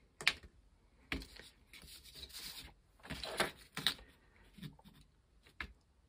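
Handling noise as a wiring harness with plastic connectors and 3D-printed connector housings is picked up and moved on a work mat: one sharp click near the start, then scattered light rustles and clicks.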